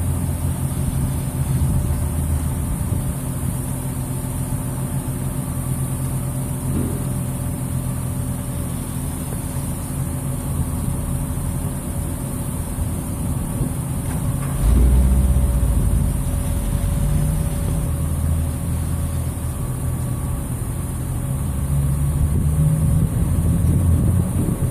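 A mobile crane's engine running steadily, turning louder with a deeper rumble a little past halfway through.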